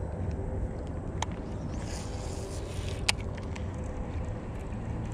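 Wind buffeting a chest-mounted camera's microphone, a steady low rumble, with two sharp clicks, one about a second in and one about three seconds in.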